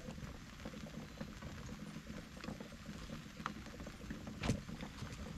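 Light rain pattering, many small scattered ticks over a soft steady hiss, with one sharper knock about four and a half seconds in.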